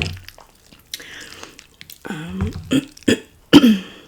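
A woman's short vocal sounds while eating: faint chewing early on, then several brief voiced sounds falling in pitch over the last two seconds, the loudest near the end.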